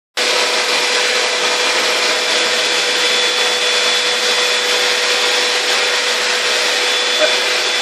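Vacuum cleaner running steadily: a constant whir with a steady whine at one fixed pitch.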